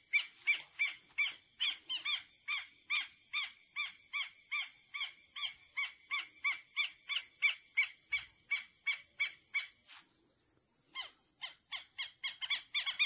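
Southern lapwing (quero-quero) alarm calls: sharp, strident notes repeated about three a second, breaking off for about a second near ten seconds in and then starting again. The birds are calling at people intruding near them.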